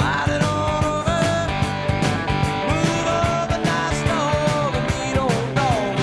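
Rock music: guitar lead lines that bend and slide in pitch over a steady drum beat.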